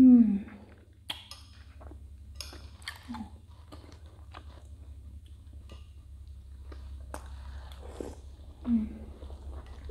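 Close mouth sounds of someone eating soft milk-soaked dough pieces (dudh roti): wet chewing and lip smacks with scattered small clicks. A hummed, falling 'mmm' of enjoyment comes at the very start and a shorter one near the end, over a steady low hum.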